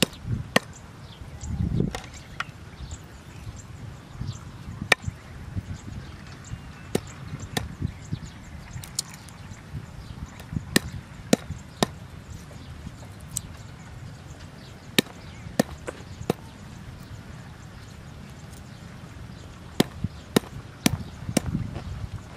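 Wooden pestle pounding garlic cloves on a wooden chopping board: sharp knocks at irregular spacing, often two or three in quick succession, with pauses between, over a low steady rumble.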